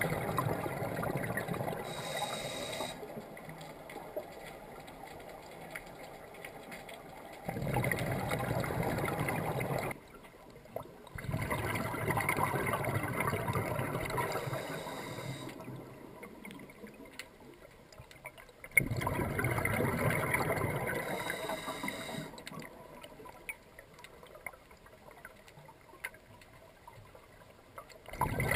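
Scuba diver breathing underwater through a regulator: exhaled bubbles gurgle in four bursts a few seconds long, with quieter stretches between breaths.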